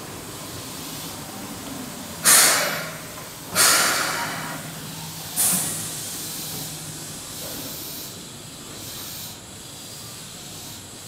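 Keihan 6000 series train standing at the platform, venting compressed air in three sharp hisses about a second or two apart, each dying away within a second or so. A low steady hum from the train runs under them.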